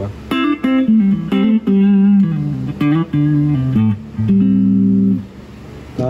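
Clean electric guitar from a Stratocaster-style guitar played through a Laney LF60-112 Lionheart Foundry tube combo in its 1-watt practice mode, with the EQ set flat. It plays a short phrase of picked single notes and chords, some held, and stops about a second before the end.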